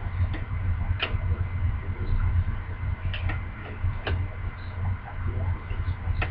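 Hockey trading cards being handled and flipped through, giving a few short, sharp card clicks about a second apart, over a steady low hum.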